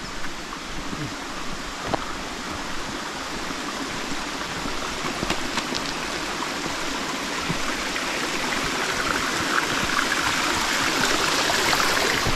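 A small woodland stream running over stones, a steady rushing and gurgling that grows gradually louder toward the end.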